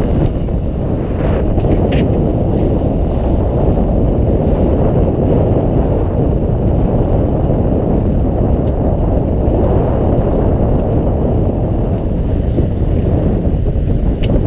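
Fishing boat at sea: a steady low rumble with wind buffeting the microphone, and a few faint clicks.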